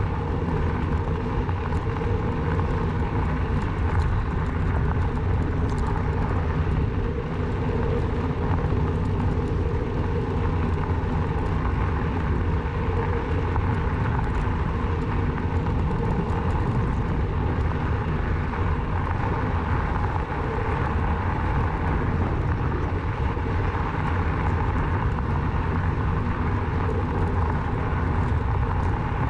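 Steady riding noise from a Rawbike electric bike in motion: a constant low rumble with a faint hum above it, unbroken throughout.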